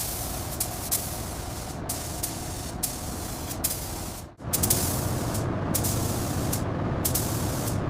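Steady spraying hiss over a low rumble, with short sharp hisses repeating every half second to a second, broken by an edit cut about four seconds in.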